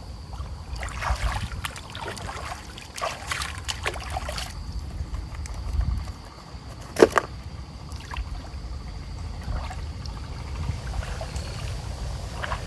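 River water splashing and sloshing in irregular bursts as it is disturbed by hand or paddle, over a steady low rumble, with one sharp knock about seven seconds in.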